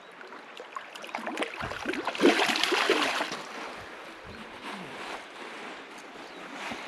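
River water splashing, loudest about two to three seconds in, over the steady flow of the river.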